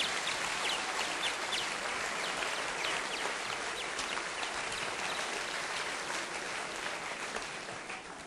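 Theatre audience applauding, slowly dying away near the end.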